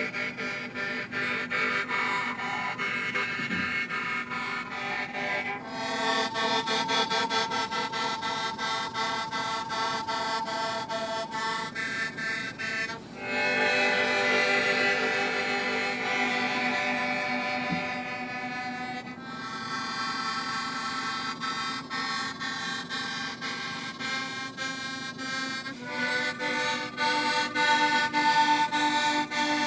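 Instrumental music: slow, held, reedy chords that change to a new chord every six or seven seconds.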